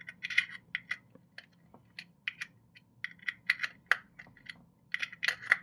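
A run of quick, irregular clicks, some in quick pairs and clusters, each with a short bright tick.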